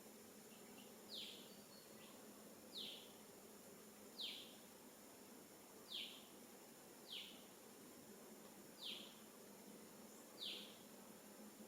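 A bird calling faintly: a short, high note that falls in pitch, repeated about every second and a half, over a steady faint background hiss.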